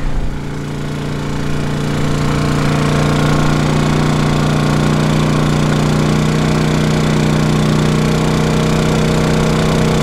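Honda EU2000i inverter generator's small single-cylinder four-stroke engine running hard under heavy electrical load. The steady engine note grows louder over the first two or three seconds, then holds steady. It is working harder and harder as the battery charger and air conditioner draw power from it.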